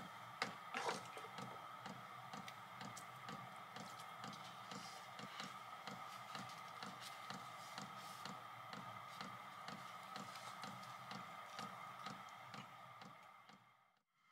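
Faint chewing, with small wet mouth clicks about two to three times a second over a steady faint hum, fading out near the end.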